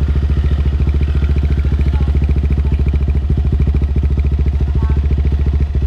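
Motorstar Gamma 200 motorcycle idling steadily with an even, rapid putter through a Villain aftermarket exhaust run with the dB killer removed.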